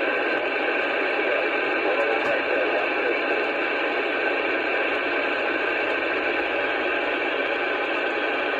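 CB radio receiver hissing with steady static on an open channel: no signal coming through, only band noise over the speaker.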